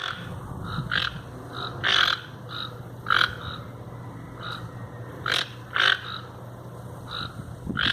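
Toucans calling: a series of short, hoarse croaks at irregular intervals, a few louder than the rest, over a steady low hum.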